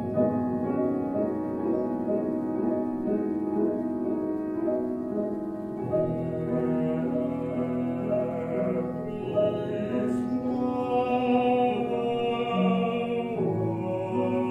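Baritone singing an improvised song in operatic style, with grand piano accompaniment; the voice holds long notes over the piano chords.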